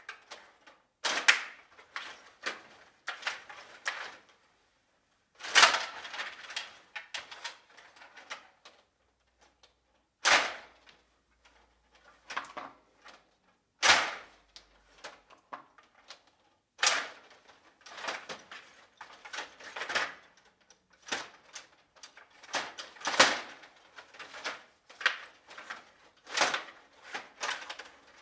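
Stiga Play Off table hockey game in play: hard plastic clacks and knocks of the player rods being pushed, pulled and spun, and the puck striking the figures and boards. The clacks come in quick runs with short pauses between them, and a few single knocks stand out.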